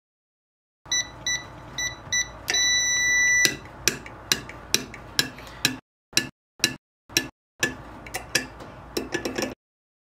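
ENFORCER SK-1131-SPQ keypad beeping: several short beeps, then one steady beep of about a second. Then a run of irregular clicks and knocks from the electric door strike as its keeper is pushed by hand during a test of the door strike wiring.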